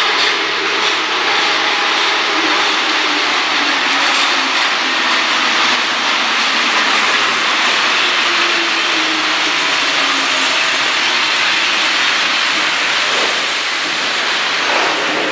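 Rubber-tyred MP73 Paris Métro train pulling into the station: a steady loud hiss of tyres and running gear, with a motor tone that falls in pitch as it slows about two-thirds of the way through.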